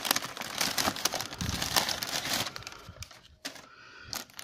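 Crumpled newspaper packing paper crinkling and rustling as it is gripped and pulled out of a cardboard box, with a rapid run of crackles that dies down about three seconds in.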